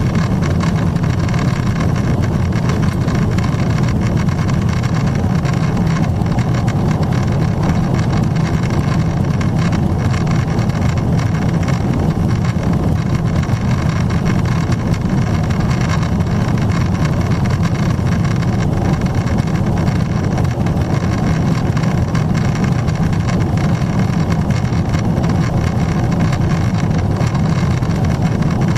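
Steady cabin noise inside a Boeing 777-300ER in the climb: its GE90-115B engines at climb power and the airflow over the fuselage make an even, loud low rumble with faint steady tones above.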